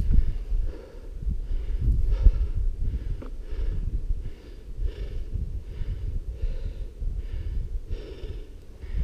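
A mountain biker panting hard and rhythmically, roughly one breath every half-second or so, over the low rumble of tyres on a dirt trail and wind on the body-mounted camera.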